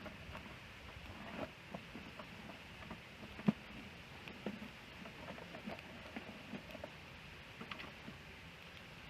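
Wood fire crackling: a low steady hiss dotted with small irregular pops and snaps, one sharper pop about three and a half seconds in.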